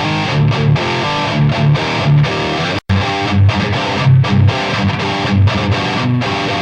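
Les Paul electric guitar played through a Marshall JVM410 amp and a 4x12 cabinet loaded with Celestion Vintage 30s, on a distorted gain setting: a riff of repeated low notes with higher notes above. It drops out for an instant near the middle.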